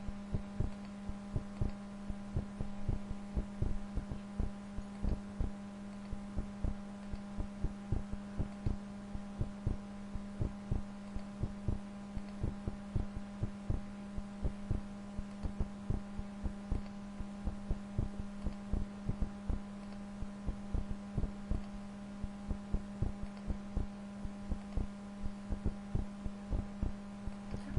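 A computer mouse clicks again and again at an uneven pace, a few clicks a second, over a steady electrical hum. The clicks are points being placed one after another while a letter is digitized for embroidery.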